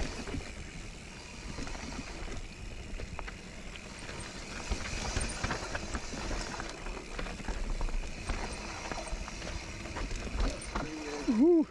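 Mountain bike riding over a rooty, rocky dirt trail: tyres rumbling and crunching, with chain and frame rattling over bumps. A short, loud pitched sound near the end bends up and down.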